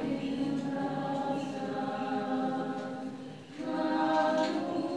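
Orthodox liturgical chant sung unaccompanied by a group of worshippers, holding long steady notes. The singing falls away briefly about three and a half seconds in, then a new held chord begins.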